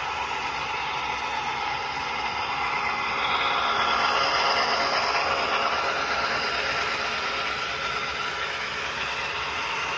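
HO scale model trains running on the layout's track: a steady whir and rattle of small motors and wheels on rail, growing louder for a few seconds in the middle as a train passes closer.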